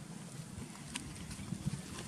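Outdoor ambience: a steady low rumble with a few light clicks or taps, one about a second in and a couple more near the end.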